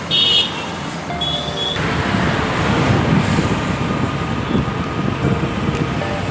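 Road traffic with two short, high-pitched vehicle horn beeps in the first two seconds. From about two seconds in, a dense, fluctuating rumble of road and wind noise from a moving vehicle on a highway.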